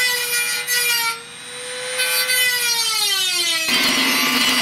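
Handheld rotary tool with a cut-off disc grinding into a sheet-metal computer case, throwing sparks. Its steady whine dips briefly about a second in and sags in pitch under load, then changes abruptly near the end to a lower, steadier whine with a grinding hiss.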